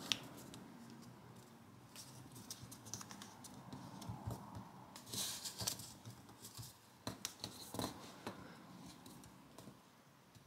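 Origami paper rustling and crinkling faintly as it is folded and creased by hand, with small clicks and ticks of the paper being pressed flat. A brief louder rustle comes about halfway through.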